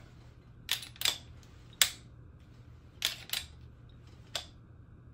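Glock 34 Gen 3 pistol being worked by hand while unloaded: its slide and trigger give about six sharp metallic clicks, some in close pairs, with the last one weaker.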